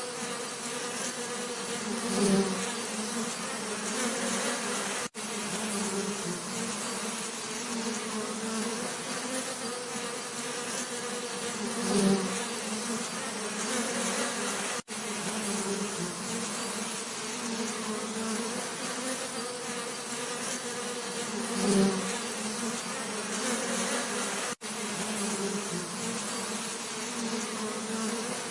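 Bees buzzing as a steady low hum, swelling louder about every ten seconds as a bee comes close. The hum drops out for an instant three times.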